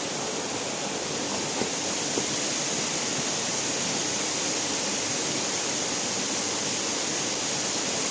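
Waterfall: falling water rushing with a steady, unbroken sound.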